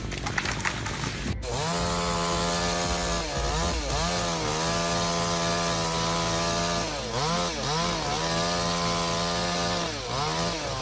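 Chainsaw engine running at high revs while cutting wood. Its pitch dips and recovers three times under load. It starts abruptly about a second and a half in, after a short stretch of other noise.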